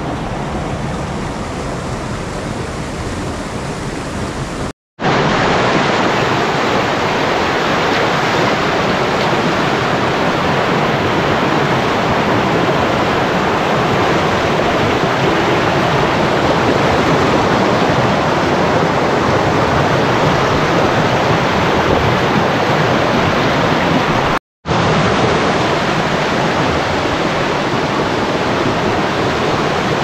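Waterfall: a steady, dense rush of falling water. It breaks off twice for an instant, about five seconds in and near 25 seconds, and is louder after the first break.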